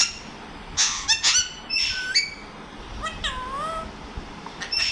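A pet parrot calling: a quick cluster of sharp squawks about a second in, another call near two seconds, then a drawn-out call that dips and swoops in pitch around three seconds in. The parrot is making noise for its breakfast.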